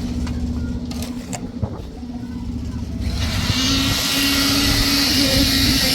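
A machine engine runs at a steady pitch. About three seconds in, a loud rushing hiss sets in over it and the sound grows louder.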